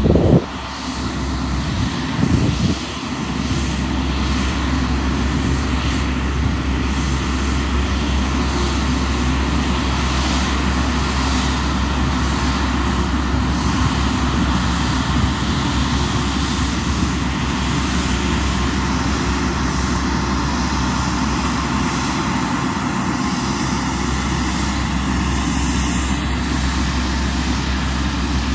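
Jet engines of a taxiing Boeing 777 freighter running at a steady, even level, with a strong low rumble. The level dips just after the start and recovers within about three seconds.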